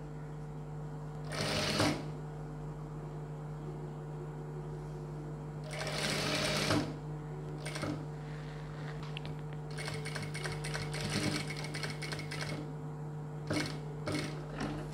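Industrial lockstitch sewing machine stitching in several short runs, the longest about two and a half seconds near the end, over a steady low hum.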